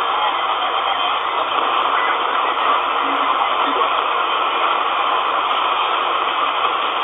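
Steady shortwave static hiss from a Malahit-clone DSP SDR receiver's speaker in lower sideband, while it is tuned up through the 40-metre amateur band around 7.1 MHz with no clear station coming through.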